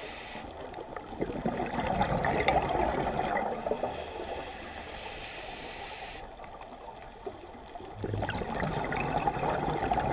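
Underwater bubbling from a scuba diver's regulator: a rush of exhaled bubbles about a second in, a quieter stretch, then another exhale near the end.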